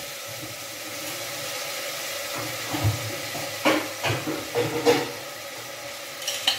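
Pumpkin pieces sizzling in an open aluminium pressure cooker on a gas flame: a steady hiss, with a few soft knocks about halfway through.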